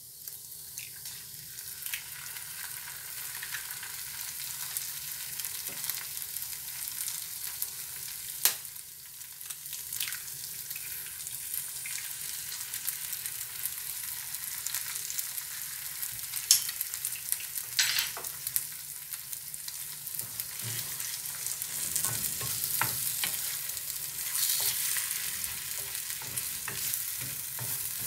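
Oil sizzling steadily in a frying pan of sautéed capsicum and onion as eggs are cracked in, with a few sharp clicks of egg shells tapped open with a spoon. Stirring with a wooden spatula and louder sizzling near the end.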